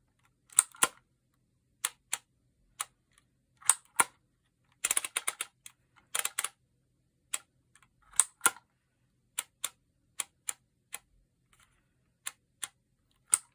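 Phomemo E975 handheld embossing label maker clicking as letters are spelled out: the character wheel clicking round between letters and the trigger squeezed to emboss each one into the tape. Sharp, irregular clicks, some single and some in quick runs.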